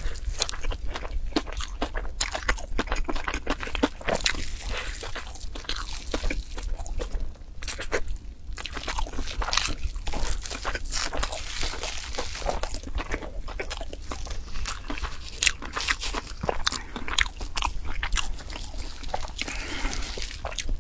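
A person biting into and chewing a crunchy, dark-red, frosty food: dense, irregular crisp crunches and crackles, with a short lull about eight seconds in.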